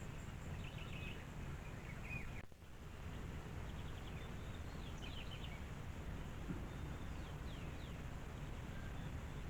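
Small birds giving short, scattered chirps and quick falling calls over a steady low background noise, with a brief dropout about two and a half seconds in.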